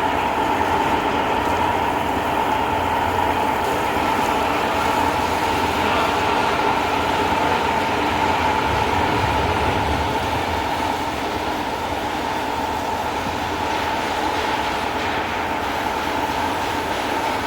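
Steady, loud machine noise with a constant whine over a dense rumble, starting abruptly and running evenly without change.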